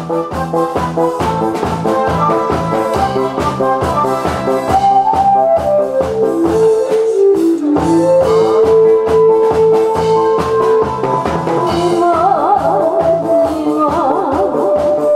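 Instrumental backing track for a song, with a steady drum beat under a brass-like melody line and accompanying chords.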